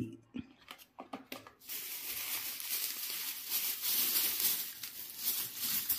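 A few light clicks, then from about two seconds in a continuous rustling and crinkling of plastic packaging as medicine packets are handled.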